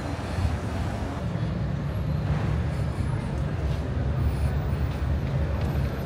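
City street ambience: a steady rumble of road traffic.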